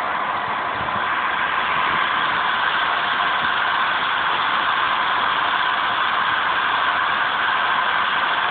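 Steam locomotive No. 186 standing with steam escaping in a steady hiss, growing a little louder about two seconds in.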